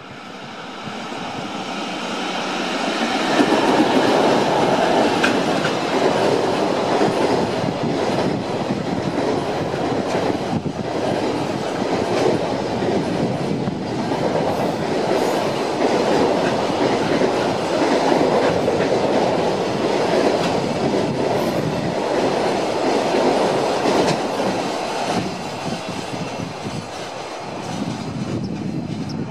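Container freight train hauled by an EF64 electric locomotive passing by: the noise of its wheels on the rails grows louder over the first few seconds as the locomotive arrives, then holds steady as the long line of container wagons rolls past, easing a little near the end.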